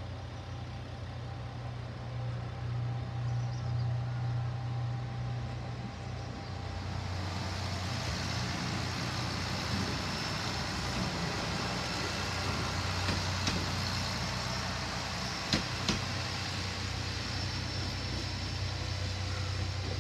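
Kanto Railway KiHa 2200-series diesel railcar passing at low speed: a steady low engine hum with the rumble of its wheels on the rails, which grows louder past the middle. Two sharp clicks come close together about three-quarters of the way through.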